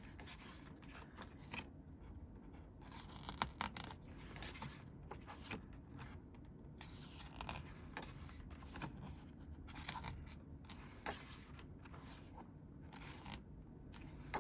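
Pages of a thick, tightly bound photobook being turned and handled: irregular soft paper swishes and scrapes, over a faint low steady hum.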